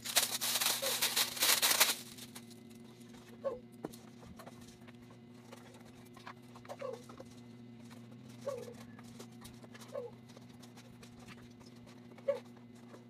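Clear plastic wrap crinkling loudly for about two seconds as a high-chair seat cushion is unwrapped. Then quieter handling over a steady low hum, with a few faint short chirps a second or two apart.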